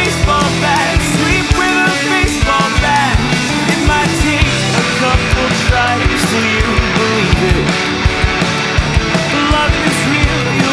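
Rock song in an instrumental passage with no singing: a steady drum beat under bass guitar and electric guitar.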